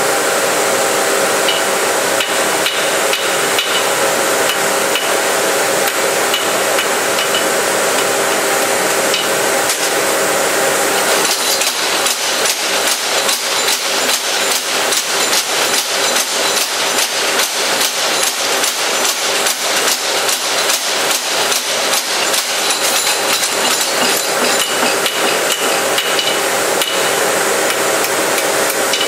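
Blacker mechanical spring hammer pounding a red-hot steel carving-tool blank in rapid, repeated blows over a steady machine hum. The blows become sharper and more distinct about a third of the way in.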